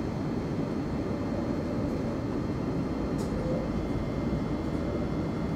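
Interior running noise of a Thameslink Class 700 (Siemens Desiro City) electric multiple unit pulling slowly away from a station platform, heard inside the passenger saloon. A steady low rumble runs under a faint, steady high whine.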